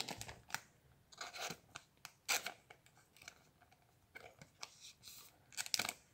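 Thin clear plastic card-pack wrapping crinkling and rustling in the hands, in short irregular crackles, loudest about two seconds in and again near the end.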